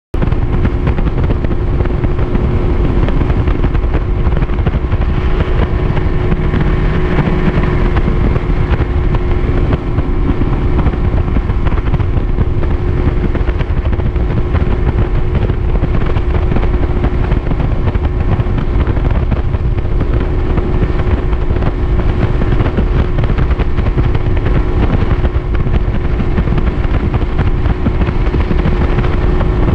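Bass boat's outboard motor running at a steady speed under way, with the rush of the hull over the water and wind buffeting the microphone.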